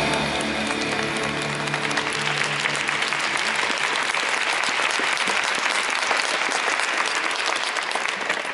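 Audience applauding: a steady patter of many hands clapping, while the closing music fades out over the first two seconds or so.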